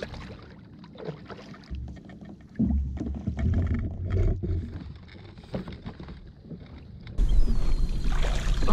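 Knocks and water sounds around a fishing kayak, stepping louder about two and a half seconds in and again near the end.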